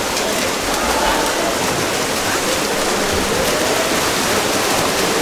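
Water splashing and churning steadily as water polo players swim and tussle in the pool.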